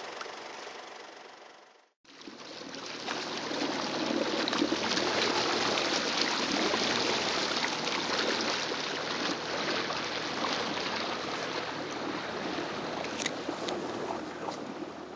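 Jet ski running on the water, starting about two seconds in: a steady rushing of water along the hull with the engine's low steady hum beneath it.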